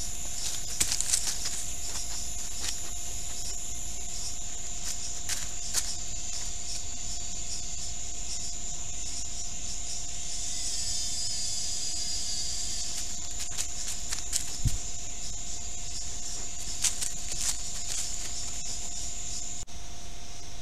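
Forest ambience picked up by a trail camera. A steady high insect drone runs over a fainter steady lower tone, broken by scattered short crackles and taps in the dry leaf litter where a deer steps and feeds.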